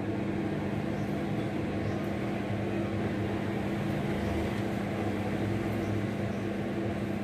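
Convection microwave oven running on preheat: a steady, even hum with a constant low tone.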